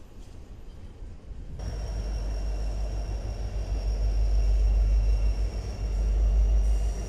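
A faint low rumble, then about a second and a half in a much louder, steady rumble of a BNSF diesel locomotive pulling a double-stack container train past close by, with a thin, steady high whine over it.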